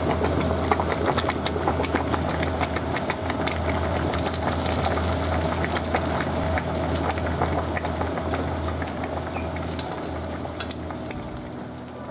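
A pot of nabe (tofu, shimeji mushrooms and udon in broth) bubbling on a radiant electric hob: a rapid crackle of popping bubbles over a steady low hum, easing off slightly near the end.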